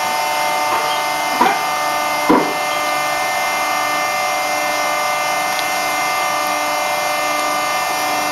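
Plaster panel making machine running with a steady mechanical whine of several constant tones. Two short knocks, about a second apart, the second the louder.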